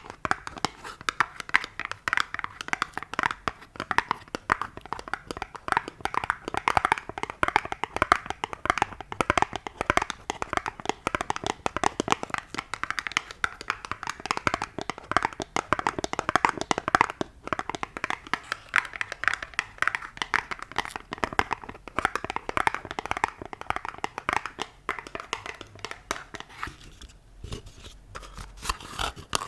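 ASMR fingertip tapping: rapid, continuous light taps and clicks, quieter for a few seconds near the end.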